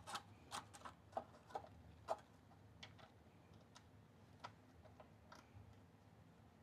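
Faint, irregular light clicks and taps of small parts being handled, several close together at first and then sparser, over near-silent room tone.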